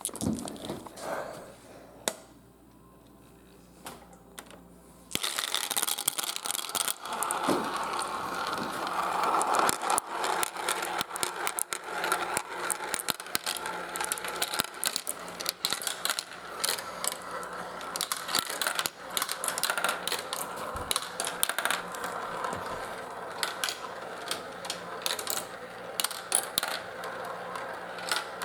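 Marbles rolling and clattering down a marble run: after a quieter start, a dense stream of clicks and clacks with a steady rolling rattle sets in about five seconds in and keeps going.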